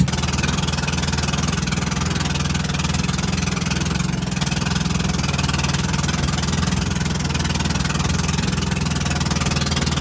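Small fishing boat's engine running steadily under way, a low even drone, with the rush of water and wind over it.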